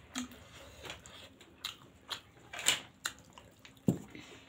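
Close-up eating sounds: people chewing spicy pasta eaten by hand, a run of small scattered mouth clicks, with a sharper knock about four seconds in.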